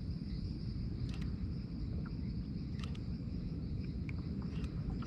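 Steady high buzzing chorus of insects, over a louder low rumble of wind on the microphone, with a few faint clicks about a second and about three seconds in.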